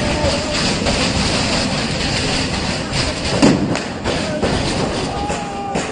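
Crowd of football fans shouting over a steady, loud rushing din, with a thud about three and a half seconds in.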